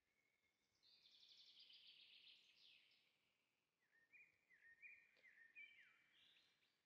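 Faint birdsong: a rapid high trill for about two seconds, then a run of short chirped notes stepping up and down in pitch.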